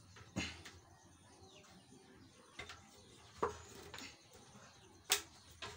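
Irregular sharp knocks and clicks, about six, from a djembe's rope lacing being pulled and tightened by hand and with a wooden stick. The loudest comes about half a second in and another near the end.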